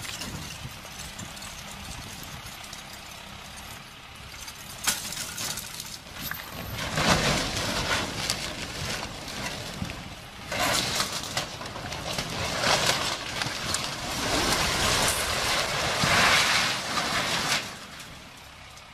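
Concrete stave silo collapsing: a few sharp cracks, then from about a third of the way in a long, rough, noisy crash of breaking and falling concrete in several surges, which dies away near the end.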